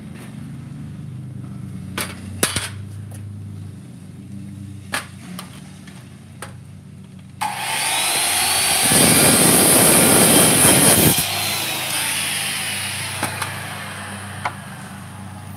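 Worm-drive circular saw started and cutting through a 2x4 board for about two seconds, then released, its whine falling as the blade winds down. A few sharp knocks come before the saw starts.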